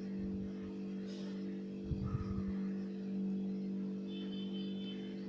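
Steady low hum, with a short cluster of soft low knocks about two seconds in from a silicone spatula folding flour into cake batter in a steel bowl.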